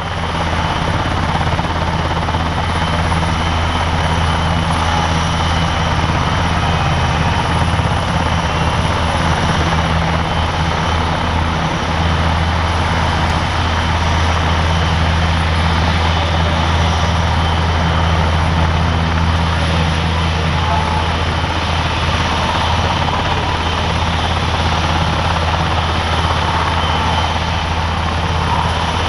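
German Air Force NH90 TTH twin-turboshaft helicopter running on the ground with its rotors turning: a steady deep rotor and engine hum under a steady high turbine whine.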